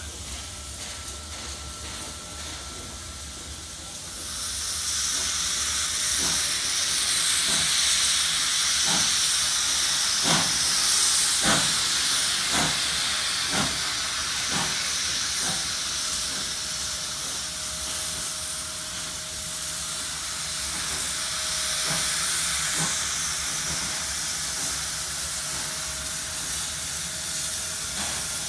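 Steam locomotive approaching slowly, with a loud steady steam hiss starting about four seconds in, and a run of short knocks about once a second through the middle.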